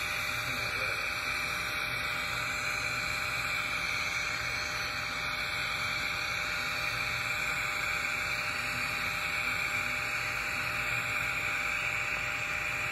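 TIG welding arc on a 2-inch carbon-steel pipe coupon, a steady even hiss during a cap pass.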